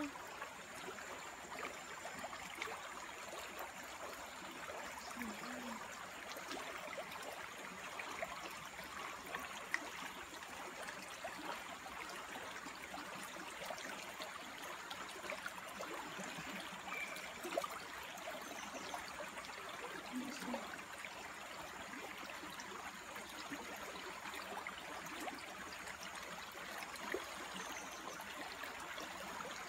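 Shallow, clear freshwater stream rushing over a pebbly bed: a steady wash of moving water.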